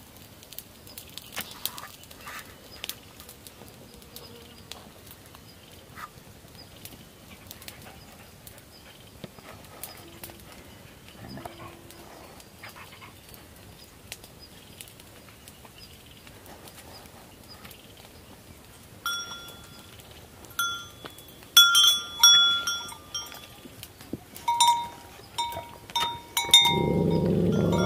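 Metal neck bells on Tibetan mastiffs clink and ring in bursts as the dogs move, starting a little over halfway through, with a second, lower-pitched bell joining a few seconds later. Near the end a dog starts a loud, deep growl.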